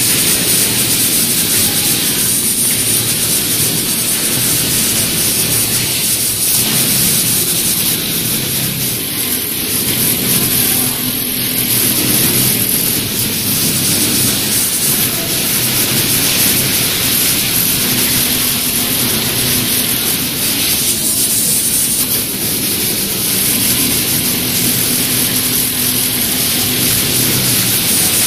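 Automatic pattern sewing machine running: a steady mechanical hum under a constant hiss, with no break.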